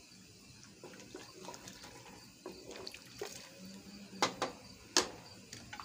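A spoon stirring broth in an aluminium pressure-cooker pot: liquid swishing, with the spoon clinking against the pot, several sharp clinks about four to five seconds in.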